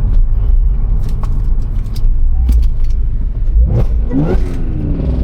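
Car engine and heavy low rumble of a vehicle running. About three and a half seconds in, an engine note rises quickly and then falls away.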